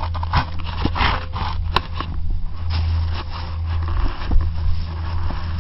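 Scraping, rustling handling noise from a leg-mounted action camera rubbing against snow and clothing, with irregular small knocks, over a steady low hum.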